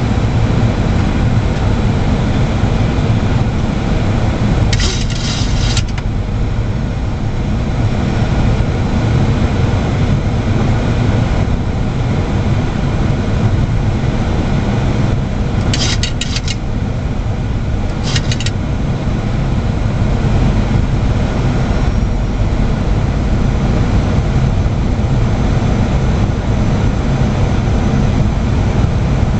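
Steady flight-deck noise of a Boeing 737-800 on final approach: a loud, even low rumble of airflow and engines. Short bursts of crackling hiss about five seconds in and twice between sixteen and eighteen seconds.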